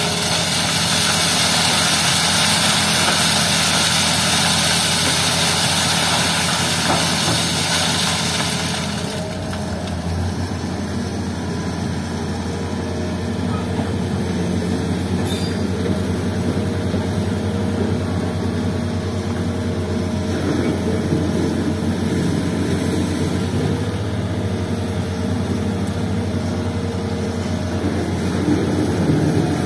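Hitachi hydraulic excavator's diesel engine running steadily. For the first nine seconds or so a loud hiss of sand and gravel pouring from the bucket through a wire-mesh sieve, which stops as the load empties.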